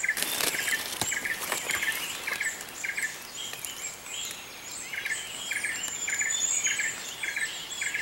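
Forest birds calling in the canopy: one bird repeats a short chirp about twice a second while others add higher calls and whistles above it.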